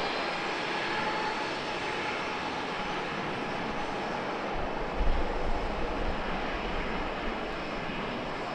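CFM56 jet engines of a taxiing United Boeing 737 running at taxi power, a steady jet hiss. A low rumble swells briefly about five seconds in.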